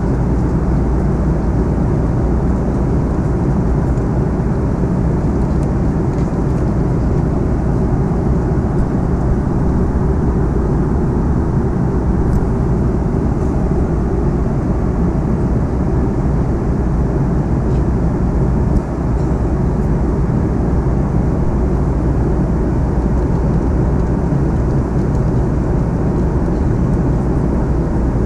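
Steady rumble of an Airbus A330-200's engines and airflow, heard from inside the passenger cabin.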